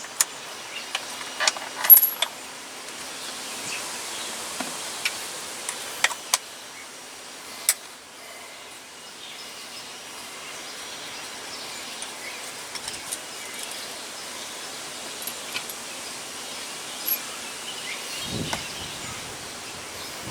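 Scattered light metallic clinks and taps of hand tools and steering parts being handled, a few sharp ones in the first eight seconds and a cluster of small ones near the end, over a steady low hiss.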